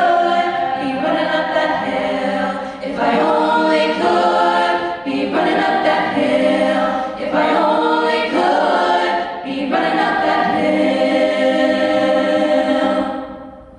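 Vocal ensemble singing a cappella in close harmony, in phrases of long held chords. The final chord is sustained and fades out shortly before the end.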